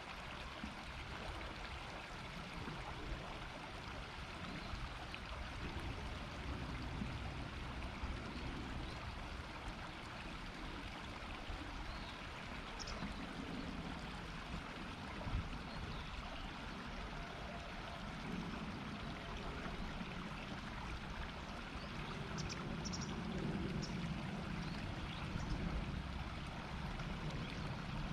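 River water flowing steadily, a continuous shallow murmuring. A few faint, short high chirps come about halfway through and again near the end.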